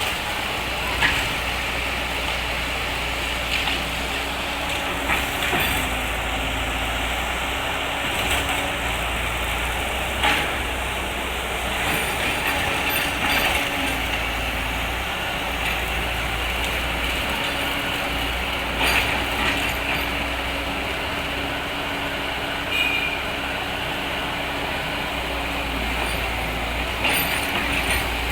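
Excavator engine running steadily, with a sharp knock or crack every few seconds.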